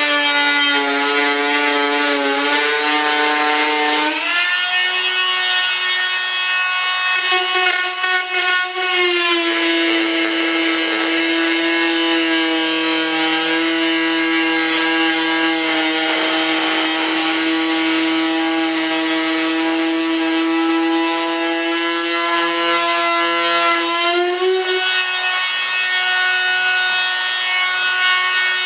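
Handheld electric rotary tool running at high speed with a steady whine, trimming fiberglass cloth. Its pitch steps to a new level a few times as the load on the cutter changes.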